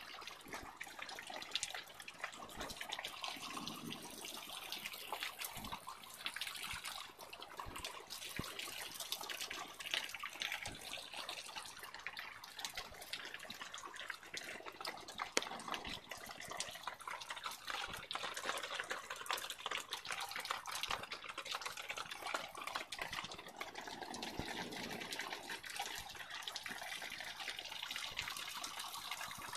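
Heavy rain mixed with hail coming down in a thunderstorm, a dense, steady patter of countless small hits on concrete, soil and plastic garden pots.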